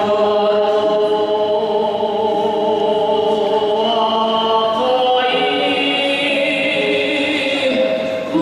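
A man chanting in Altai throat-singing style, holding long, steady tones; about five seconds in, high whistling overtones come in above the drone. The plucked strings of a reconstructed Pazyryk Scythian harp (dyadaan) accompany him.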